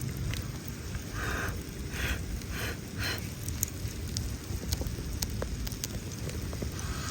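Wood campfire crackling with sharp, scattered pops over a steady sizzle of food cooking in a hot iron pan, with a few short noises about one to three seconds in.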